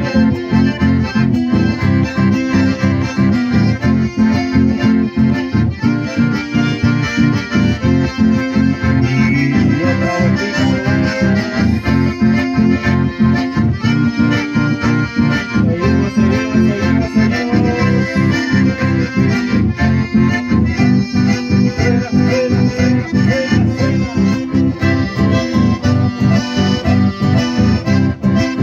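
Live chamamé played by accordions with strummed acoustic guitars. The accordions carry the melody over a steady, even beat.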